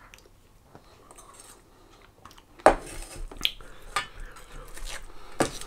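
Metal spoon clinking and scraping against a stainless steel bowl a few times, starting about two and a half seconds in, the first clink the loudest.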